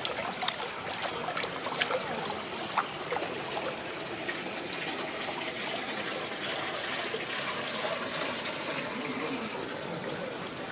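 Steady splashing of running water, with a few sharp clicks in the first three seconds.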